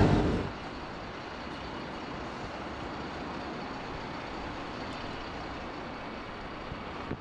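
Steady road-traffic noise from a busy city junction, with cars and a bus running. A louder low rumble fades out in the first half second.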